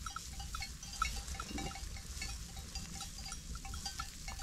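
Small bells on a flock of sheep tinkling faintly and irregularly as the animals move about.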